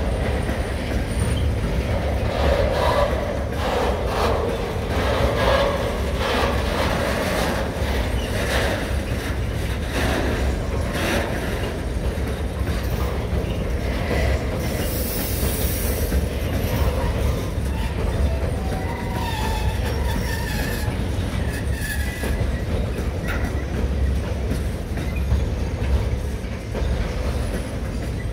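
Freight train of bogie tank wagons rolling past, with a steady low rumble and the repeated clicks of wheels over rail joints. Wheel squeal rises briefly a few seconds in and again after the middle.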